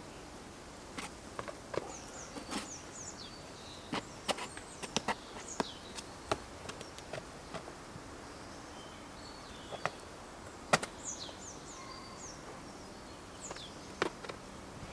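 Scattered sharp taps and scrapes of climbing shoes and hands on sandstone as a climber tops out on a boulder, the loudest a little before the 11-second mark. Small birds chirp in short high falling notes between them.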